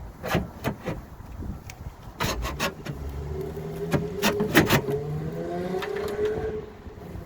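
Sharp metallic clicks and knocks from work on the car door, then a small electric motor whirs for about three seconds, its pitch rising slowly.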